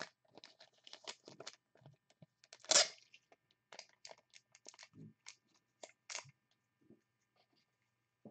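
Trading cards and plastic card sleeves and holders being handled at close range: a scatter of light rustles, clicks and taps, with one louder scrape-like rustle about three seconds in and a soft thud near five seconds.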